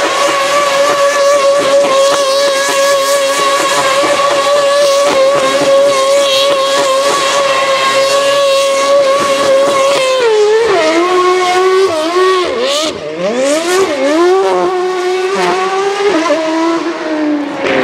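Ferrari Type 056 2.4-litre V8 of a Sauber C32 Formula 1 car held at high, steady revs while the rear tyres spin in a smoky burnout, with tyre noise over it. About ten seconds in, the revs drop and the engine note rises and falls in quick swoops as the car slides round in donuts.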